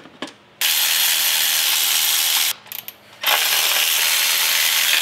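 Cordless electric ratchet with a 12 mm deep socket and extension running in two spells of about two seconds each, unscrewing the upper intake manifold bolts. A few light clicks come between the two runs.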